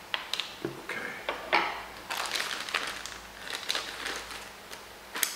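Coffee being transferred from a plastic packet into a container: crinkling of the bag with scattered small clicks and taps.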